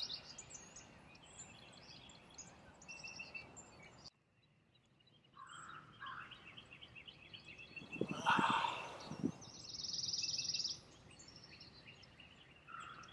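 Songbirds chirping and calling in the open, with a rapid buzzy trill at the start and again about ten seconds in. About eight seconds in there is a brief louder sound with a few knocks.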